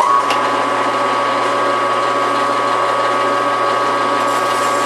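Metal lathe switched on and running steadily, its motor and gearing giving a constant hum with a steady tone, while a lathe file is held on the spinning metal bushing to take the sharp edges off.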